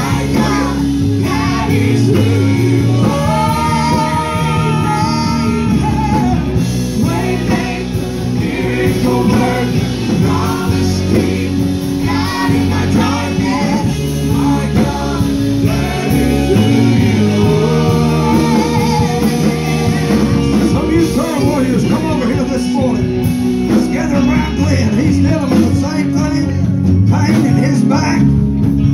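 A woman singing a worship song into a microphone over instrumental accompaniment, holding several long notes.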